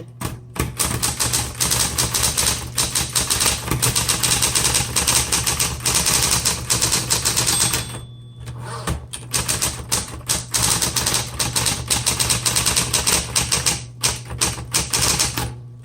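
Smith Corona Electra 120 electric typewriter being typed on fast: a rapid run of keystrokes and type bars striking over the steady hum of its running motor, with brief pauses about halfway through and near the end.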